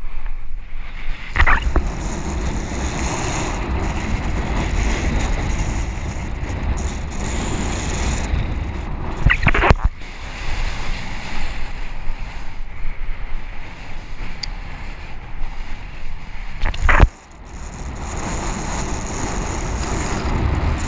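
Wind buffeting the camera microphone over rushing water while riding a kitefoil at speed. Three brief, sharper bursts come several seconds apart, and the noise drops out for a moment just after the last one.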